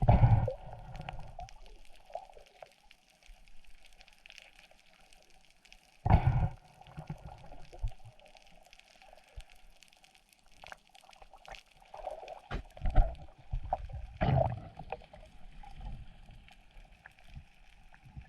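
Water gurgling and sloshing around a spearfisher's camera, muffled, with loud rushing surges at the start, about six seconds in and again around twelve to fifteen seconds in.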